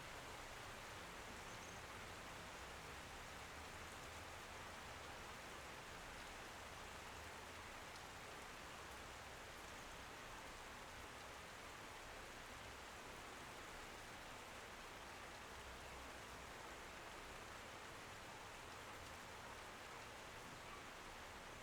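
Steady rain falling, a soft, even hiss of drops.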